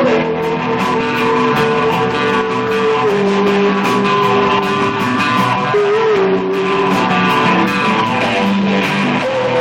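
Live rock band playing an instrumental passage with guitar and drums. A lead line holds long notes that step down in pitch, with a bend about six seconds in.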